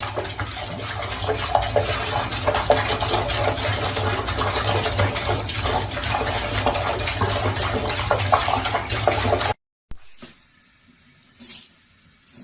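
Steady rush of running water, like a tap or bath filling, which cuts off abruptly about nine and a half seconds in; a few faint knocks follow.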